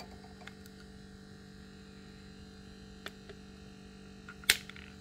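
Tweezers lifting a brass rifle case out of an induction annealing coil and setting it in a wooden holder: a few light clicks, then one sharp click about four and a half seconds in. A steady low hum runs underneath.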